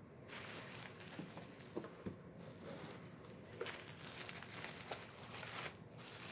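Plastic bubble wrap crinkling and rustling as hands handle and unwrap a wrapped DVD package, with many small crackles throughout.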